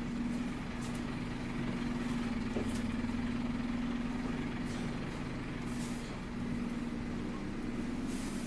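Scania-chassised Optare Olympus double-decker bus's diesel engine idling, a steady hum heard from inside the lower deck that dips briefly about six seconds in. Two short hisses of air sound, one just before the dip and one near the end.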